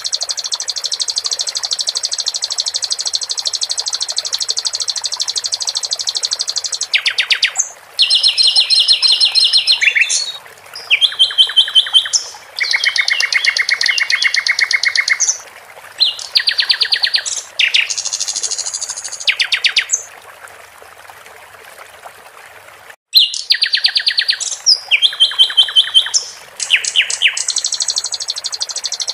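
Sikatan londo song: long, fast, high-pitched trills and rapidly repeated chattering notes in separate phrases, over a steady trickle of water. The bird stops for about three seconds near two-thirds of the way through, leaving only the water, then starts again.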